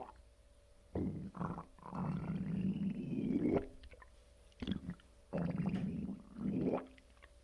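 Lower belly gurgling and rumbling in about six separate bursts, one of them lasting over a second in the middle, with short quiet gaps between. This is bowel gurgling from fluid and gas moving through the gut, which the uploader puts down to water moving in a freshly emptied colon.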